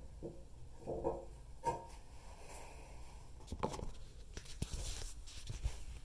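Handling noise from a phone being moved around: scattered clicks, knocks and rubbing, with sharper knocks about a second in and just before two seconds.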